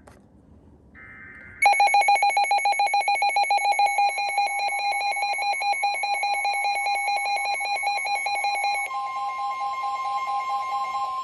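Weather-radio alert tones. A rapid, pulsing alarm beep starts about a second and a half in. A steady NOAA Weather Radio warning tone near 1 kHz joins it, and near the end the beeping fades and the steady tone carries on alone.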